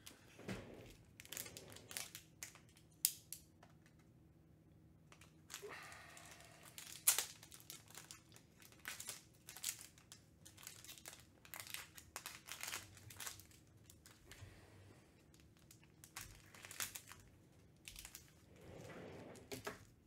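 Thin plastic penny card sleeves and their packaging crinkling and rustling as they are handled, in short irregular bursts with a couple of sharper taps. A faint steady hum runs underneath.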